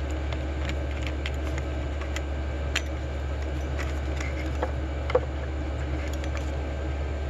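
Scattered light clicks and taps of a small plastic plug-in charger being handled and taken apart by hand, over a steady low hum.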